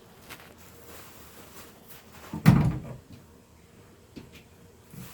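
A single heavy thump about two and a half seconds in that rings briefly, with a few faint clicks around it.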